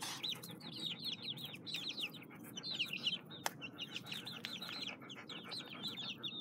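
Young chickens peeping: a steady stream of short, high, falling peeps, several a second, as the chicks crowd round to feed. A single sharp click comes about three and a half seconds in.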